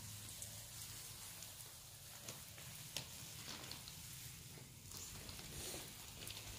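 Faint spray of water from a garden hose pattering onto plants and soil, a steady hiss with many small droplet ticks.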